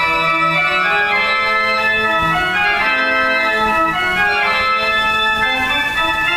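Organ music: held notes in several parts at once, moving from chord to chord.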